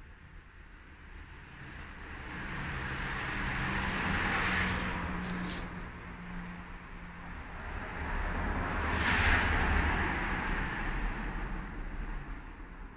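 Road traffic passing: two vehicles' noise swells and fades, loudest about four seconds in and again about nine seconds in, over a low rumble.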